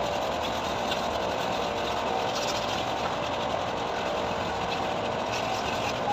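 A machine running steadily with a continuous, even hum.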